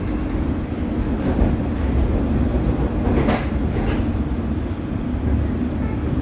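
London Underground District line S7 Stock train running, heard from inside the carriage: a steady low rumble and drone of wheels on rails and traction equipment, with a brief louder rush of rail noise about three seconds in.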